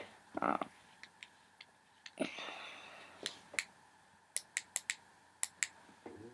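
Small, sharp clicks from a handheld laser pointer pen being handled and switched on, about eight of them over the last three seconds, with a soft rustle of handling about two seconds in.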